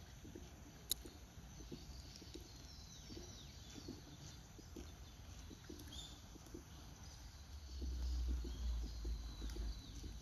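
Faint outdoor ambience with scattered short bird calls, thin chirps falling in pitch, and a single sharp click about a second in. A low rumble swells near the end.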